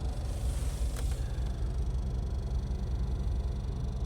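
Steady low rumble of a vehicle driving, with a faint click about a second in.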